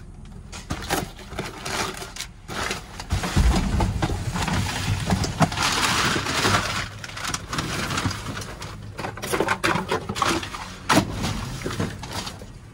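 Cardboard boxes, paper and plastic packaging being shoved and rummaged through by hand, rustling and crinkling with irregular knocks and crackles. It gets heavier, with a dull rumble, from about three seconds in.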